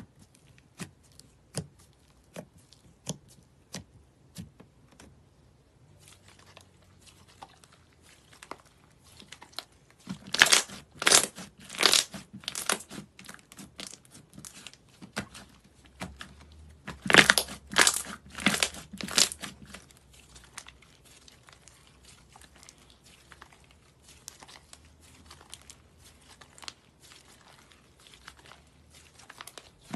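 Thick orange slime being poked, pressed and stretched by hand. It gives separate sharp clicks and pops at first, then denser crackling, with two loud spells of rapid popping partway through.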